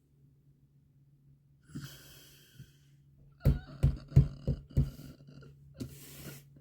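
Tarot cards being handled on a table: a short papery rustle, then five quick sharp thumps about a third of a second apart as cards are put down on the table, and another rustle near the end. A faint steady hum runs underneath.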